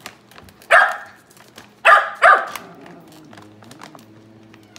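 A dog barks three times: once about a second in, then twice in quick succession near the two-second mark. Between the barks a plastic dog-food bag crinkles lightly as it is nosed.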